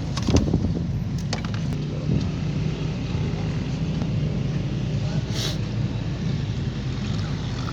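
Motor vehicle engine running steadily at idle, with a few sharp clicks in the first two seconds and a short hiss about five seconds in.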